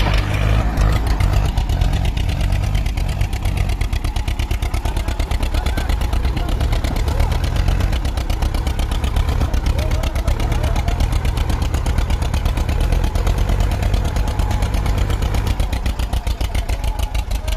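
Diesel engines of two tractors, an Escort 335 and a Sonalika Sikandar 52 hp, running hard under heavy load as they pull against each other on a chain, with a loud, rapid, even chugging.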